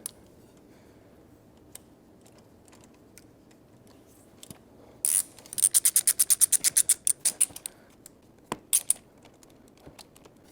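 Socket ratchet clicking: a few faint clicks, then about halfway through a quick run of rapid clicks lasting a couple of seconds and a few more near the end, as a spark plug fitted with a thread-repair insert is run down into an aluminum cylinder head.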